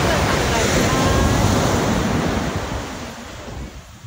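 Ocean surf breaking and washing up a sandy beach, with wind buffeting the microphone; it eases off about three seconds in.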